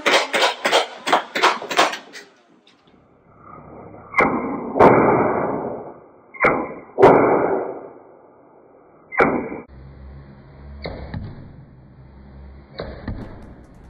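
Toy foam-dart blaster firing: a quick run of about six sharp shots in the first two seconds, then a few louder single shots with a whoosh, spaced a couple of seconds apart. A low steady hum runs under the last few seconds.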